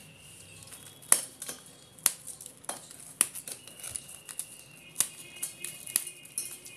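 Crisp, dry-toasted bread slices snapped into pieces by hand and dropped into a stainless-steel mixer jar: crunching and crackling, with about six sharp clicks of hard pieces breaking or landing on the steel.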